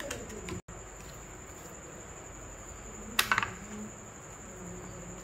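Marinated raw chicken pieces handled and laid by hand into a metal pizza pan, with a quick cluster of sharp taps against the pan about three seconds in. A steady high-pitched whine runs underneath.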